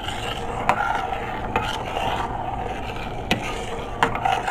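Metal spoon stirring rice and water in a stainless steel pot, scraping along the pot, with a few sharp clicks of the spoon against the metal.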